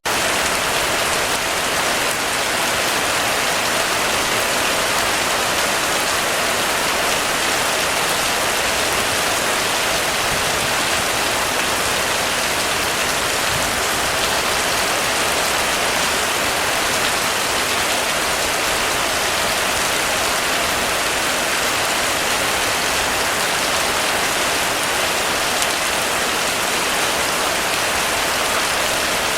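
Heavy rain falling steadily on a roof, a dense, even patter that holds unchanged throughout.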